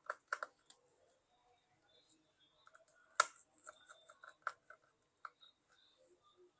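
Faint, irregular clicks and light taps of a small screwdriver working tiny screws out of a Samsung Galaxy Z Fold 3's frame, with one sharper click about three seconds in.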